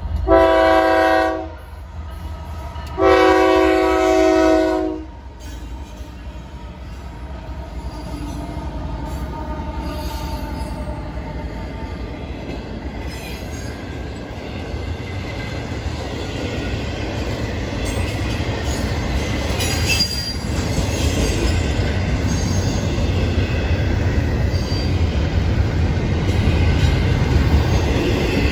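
Locomotive horn of a Florida East Coast Railway freight train sounding two long blasts, then the train's GE ES44C4 locomotives and intermodal flatcars pass close by: a steady rumble with wheel and rail noise that grows louder.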